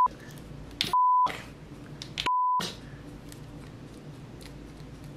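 Censor bleeps: a single steady high tone sounding three times about a second apart, all other sound cut out under each, the first ending just at the start. Between them only faint room noise and small clicks.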